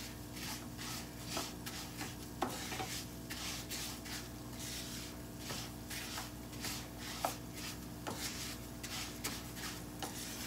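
Uncooked rice being stirred as it browns in oil in a frying pan: a spoon scraping through the grains in quick repeated strokes, about one to two a second, with a few sharper knocks of the spoon against the pan.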